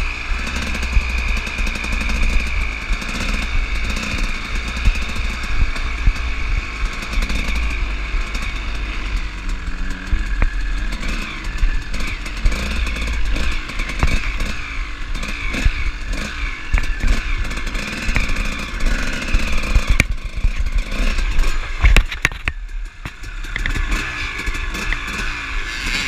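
Dirt bike engine running and blipping at low speed as the bike is ridden slowly, with a brief clatter near the end followed by a short dip in the engine sound.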